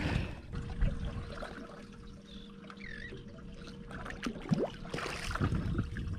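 Water lapping and trickling against the hull of a small fishing boat, with scattered soft knocks and a faint steady hum underneath.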